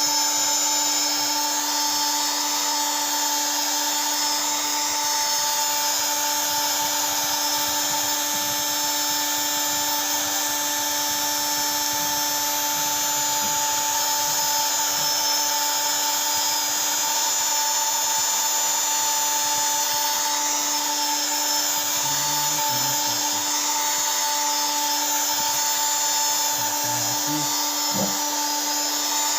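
A small electric tool motor running steadily without a break, a constant whine over a high hiss.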